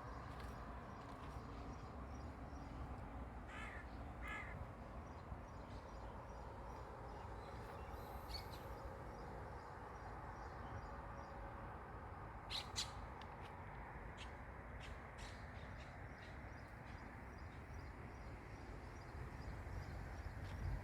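A crow gives two short harsh caws about four seconds in, over a steady low background rumble. A few sharp clicks follow later.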